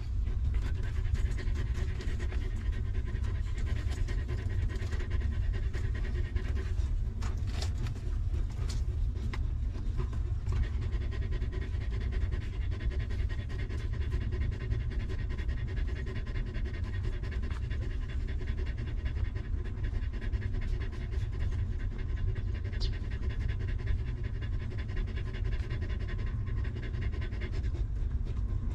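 A nursing mother dog panting steadily, over a steady low rumble.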